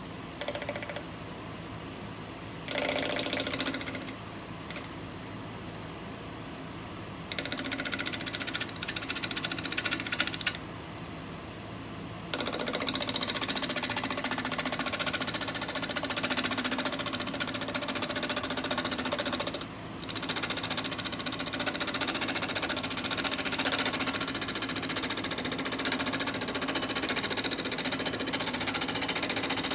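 Bowl gouge cutting a spinning natural-edge pear bowl on a wood lathe, over the lathe's steady hum. The cuts come in passes: short ones about 1 and 3 s in, a longer one from about 7 to 10 s, then near-continuous cutting from about 12 s on, broken briefly near 20 s.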